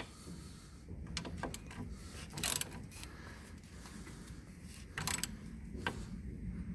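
A 3/8-inch ratchet wrench on an 18 mm ball-joint nut, working in short bouts of clicking with pauses between strokes. The nut is not coming free because the bolt is spinning with it.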